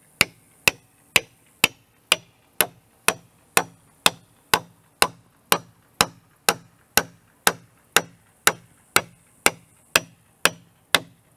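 Hammer driving a 1-inch oak peg through a mortise-and-tenon joint in a timber frame: steady, evenly spaced blows, about two a second.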